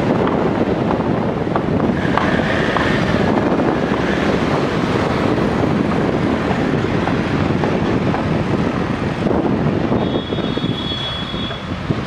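Steady rumble of diesel tractors and road traffic passing close by, with wind noise on the microphone. A brief high tone sounds about two seconds in and again near the end.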